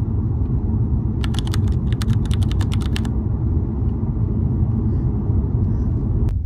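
A loud, steady low rumble, with a quick run of about fifteen light clicks between about one and three seconds in.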